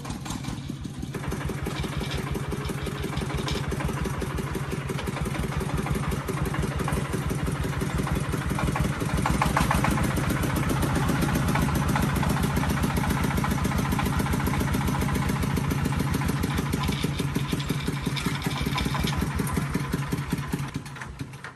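Diesel engine running steadily, its firing beats in an even, rapid rhythm; it fades away near the end.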